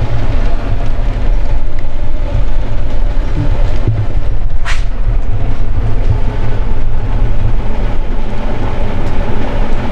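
A loud, steady low rumble with a noisy haze above it, and one brief sharp sound about halfway through.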